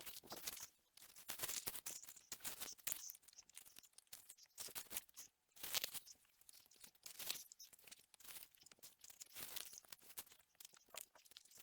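Dry hay and straw mulch being pulled aside by hand, rustling and crackling in faint, irregular bursts.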